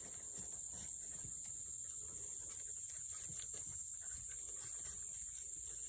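A steady, high-pitched insect chorus, with irregular rustling and crunching of footsteps in dry leaf litter.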